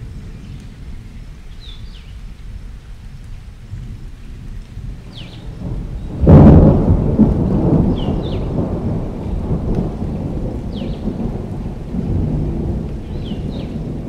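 Thunderstorm: a low rumble of thunder with rain, breaking into a loud thunderclap about six seconds in that then rolls on.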